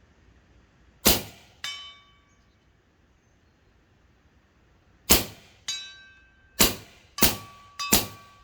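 Five shots from a suppressed .357 Terminator big-bore air rifle firing FX pellets. The first two each draw a metallic clang with a ringing tone about half a second later, typical of the pellet striking a steel target at about 80 yards. The last three shots come in quick succession, with ringing running through them.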